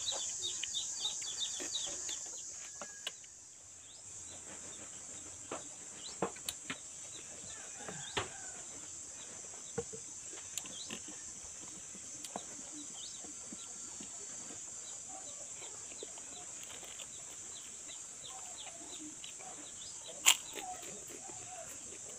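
Hand-eating sounds: soft scattered clicks and taps of fingers and rice against an enamel plate, with chewing, over a steady high-pitched hiss. Chickens cluck now and then, and a single sharp knock near the end is the loudest sound.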